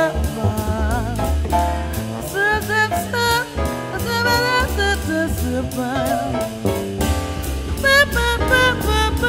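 Swing jazz band recording with no words: a lead line with vibrato over walking bass, piano and drum kit.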